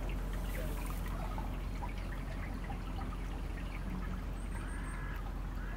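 Steady river water trickling and lapping along a grassy bank, over a constant low rumble.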